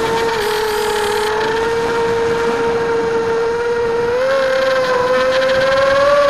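Brushless motors and propellers of a Coptergeist CGX250 mini H quadcopter in flight, heard from its onboard camera: a steady whine over wind rush. The pitch rises a little about four seconds in.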